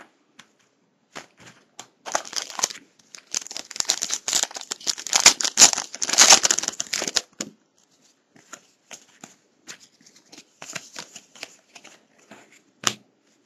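A pack of 2007-08 Bowman Draft Picks & Stars basketball cards being torn open, its shiny wrapper crinkling and rustling densely for about five seconds. Scattered light clicks and rustles follow as the cards are handled.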